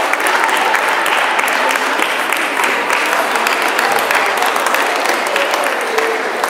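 Din of a busy table tennis hall: a dense, steady clatter of many table tennis balls clicking off tables and paddles across several matches, over a murmur of voices.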